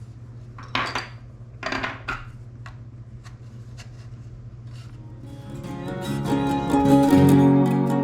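Two short clattering rattles and a few small clicks of the mount's small parts being handled, over a low steady hum. Background music with plucked strings then fades in over the last few seconds and becomes the loudest sound.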